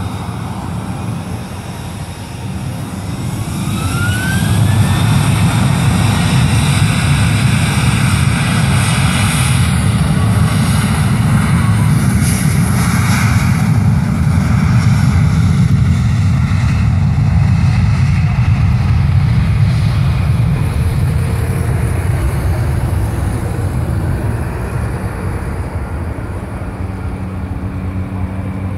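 Boeing 737-800's CFM56 jet engines spooling up to takeoff thrust, a rising whine about three seconds in. A loud, steady jet rumble follows as the airliner makes its takeoff run, easing off slowly over the last several seconds.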